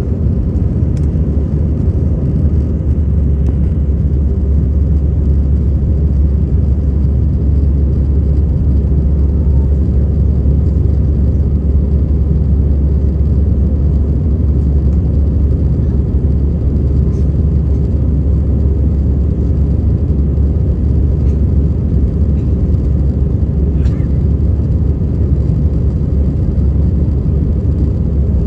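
Steady low rumble of an airliner's engines and airflow heard inside the passenger cabin, holding an even level throughout.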